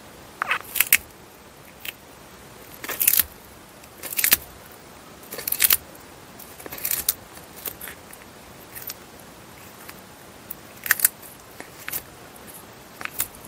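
Eastern Hermann's tortoise biting and tearing crisp leafy greens such as chicory: short, sharp crunching snips at irregular intervals, about one a second.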